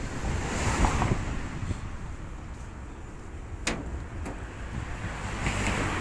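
Wind buffeting the microphone with a steady low rumble. Traffic on the bridge's road deck comes and goes as two hissing swells, one about a second in and one near the end as a car passes. Two sharp clicks sound a little past halfway.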